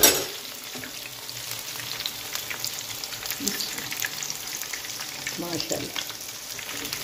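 Battered chicken necks deep-frying in hot oil, a steady sizzle with dense crackling and bubbling. It is louder for a moment right at the start, as a batch is lifted out with a wire strainer.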